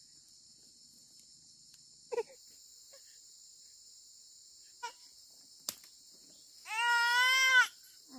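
A baby's voice: one drawn-out, wavering cry near the end, after a few faint short sounds earlier. Under it, steady high-pitched chirring of insects.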